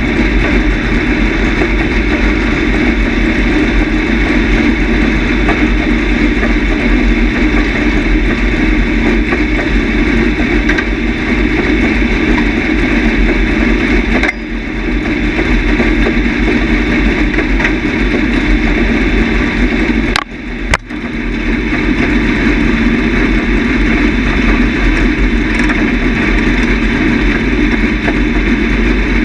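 Dirt late model race car's V8 engine running, heard from inside the cockpit. The sound is steady and loud, with a brief dip about fourteen seconds in and two sharp drops about twenty seconds in.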